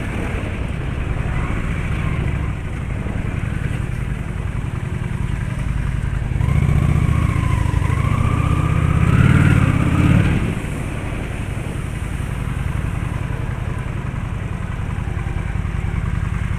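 Road traffic: a steady low engine and road rumble that swells louder for a few seconds around the middle, with a rising whine as a vehicle speeds up, then settles back.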